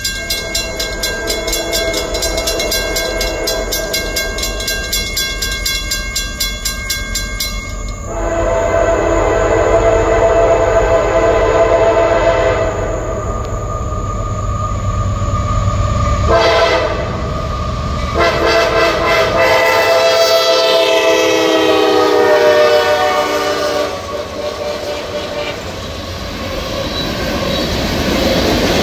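Diesel freight locomotive's air horn blowing several blasts for a grade crossing, the last long blast sliding down in pitch as the locomotive passes, followed by tank cars rolling by. Before the horn, for about the first eight seconds, a fast, even ringing is heard.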